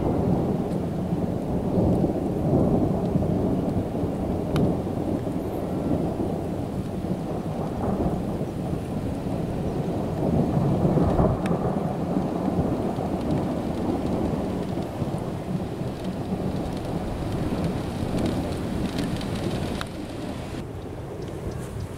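Thunder rolling on and on in long low swells, with steady rain falling and a few sharp raindrop ticks. The rumble eases near the end.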